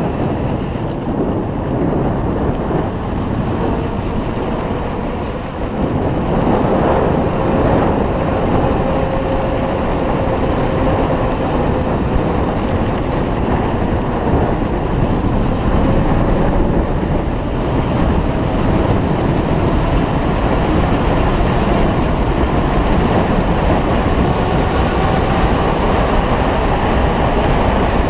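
Wind buffeting the microphone on a moving bicycle, a loud steady rush with road and tyre noise beneath it. A faint whine drifts slowly in pitch partway through and again near the end.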